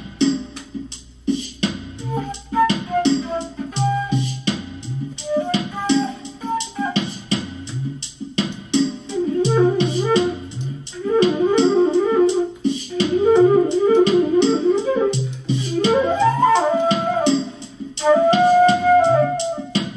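Flute playing a melody over a backing track with a steady beat and a pulsing bass line.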